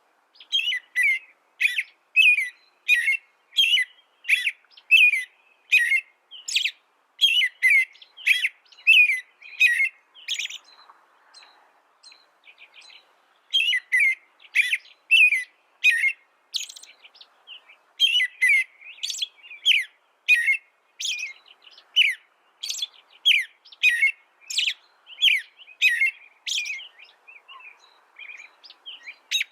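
A songbird singing a long run of short, repeated chirping notes, about two a second, with a break of about three seconds near the middle.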